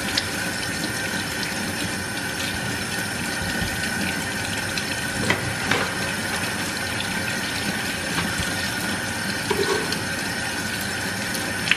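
Kitchen tap running steadily into a sink, with a couple of light knocks about five and six seconds in.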